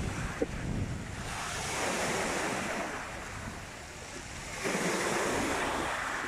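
Small sea waves breaking and washing up a pebble beach, swelling louder twice, about a second and a half in and again near the end. Wind rumbles on the microphone early on.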